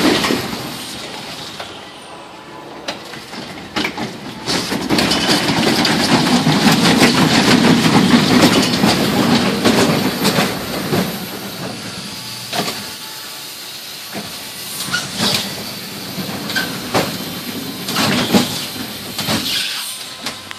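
Small steel family roller coaster train rolling and clattering along its track, a rumble broken by many irregular clacks, loudest about a third of the way in and easing off toward the end.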